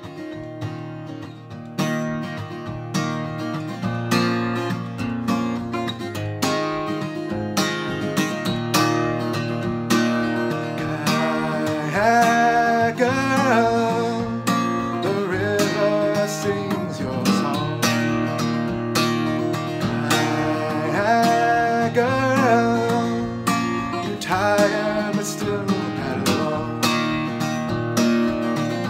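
Acoustic guitar strummed steadily, quiet for the first two seconds and fuller after that. A man's voice sings over it in stretches, from about twelve seconds in.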